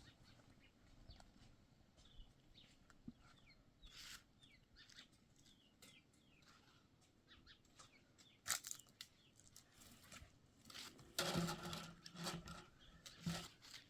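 Faint rural ambience: small birds chirping at intervals, with scattered clicks and a louder cluster of knocks about three-quarters of the way through.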